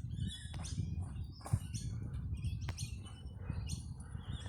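Birds chirping over and over, short high calls coming roughly twice a second, over a steady low rumble, with a few sharp clicks in between.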